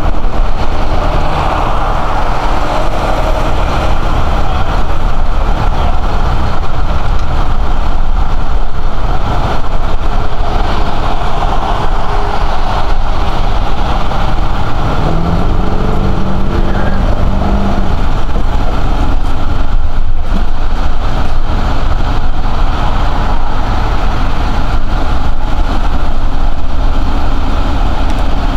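Truck engine running steadily at idle, with a brief rise in pitch about halfway through.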